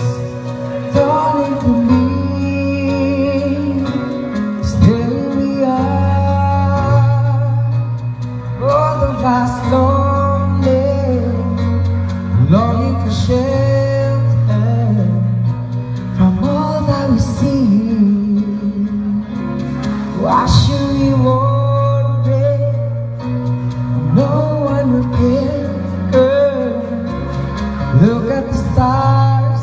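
A man singing a slow ballad into a microphone, with long held notes and vibrato, over a recorded instrumental backing track with a steady bass.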